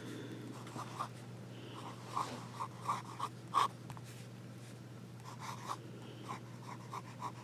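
A Visconti Homo Sapiens fountain pen's broad nib writing on paper: a run of short, light scratching strokes, a pause of about a second and a half, then more strokes. A faint steady hum lies underneath.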